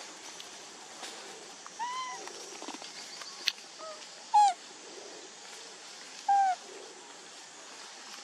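Macaque giving short, arched coo calls: a few soft ones about two seconds in, then two louder single coos about four and six seconds in, with one sharp click between them.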